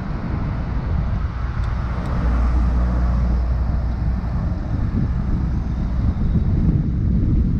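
Wind rumbling on a bicycle-mounted camera's microphone while riding, mixed with the noise of motor vehicle traffic running close by. The traffic swells louder about two seconds in.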